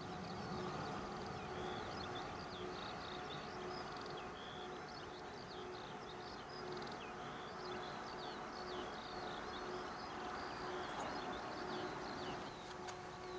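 Many small birds chirping in quick, overlapping calls, over a steady distant hum of aircraft engines.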